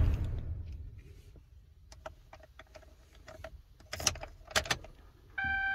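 Chevrolet Suburban's engine switched off and running down to quiet, followed by keys jangling and clicking at the ignition. Near the end the ignition is turned back on and a steady electronic warning chime starts suddenly.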